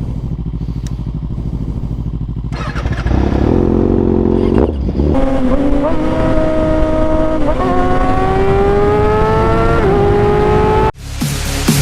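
Kawasaki ZX-6R sport bike's inline-four engine, low and steady at first, then revved and pulling hard through several upshifts, the pitch climbing in each gear and dropping a little at each shift. The sound cuts off suddenly near the end.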